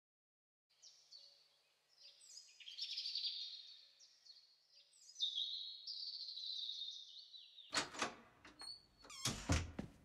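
Birds chirping: many short, falling whistled calls overlapping. From about eight seconds in, a quick run of footsteps and knocks, a child running on a stairway.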